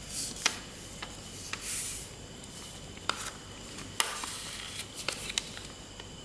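A sheet of paper being folded and creased by hand into a paper airplane: short rustles with several sharp crinkling snaps as the folds are pressed.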